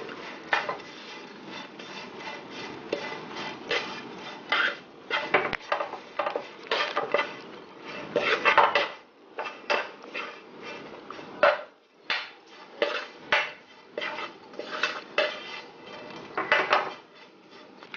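White plastic spoon scraping and knocking against a nonstick frying pan in quick, irregular strokes, tossing dried anchovies through a thickened syrup mixture, with the anchovies rustling.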